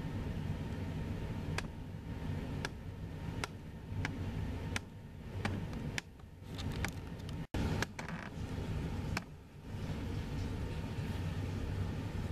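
Steady low rumble of jet aircraft engines, with scattered light clicks. The sound cuts out for an instant about seven and a half seconds in.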